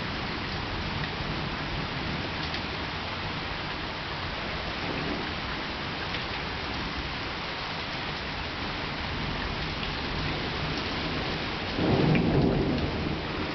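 Steady pattering of heavy summer rain during a thunderstorm, with thunder rumbling; a louder peal of thunder swells up about twelve seconds in.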